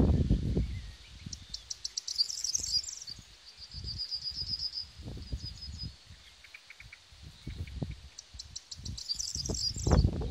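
A small songbird sings the same short song twice, each time a quick run of ticking notes ending in a trill. Under it runs low rumbling wind noise on the microphone, loudest at the start and near the end.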